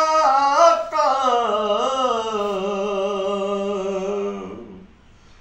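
A man's voice singing a naat unaccompanied. About a second in it runs through a few quick turns in pitch, then holds one long note that sinks slightly and fades out near the end.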